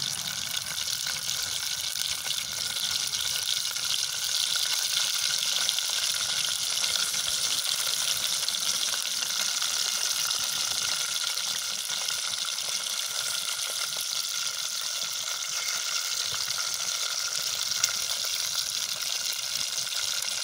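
Pieces of fish frying in hot oil in an aluminium pot, a steady sizzle with one louder pop near the end.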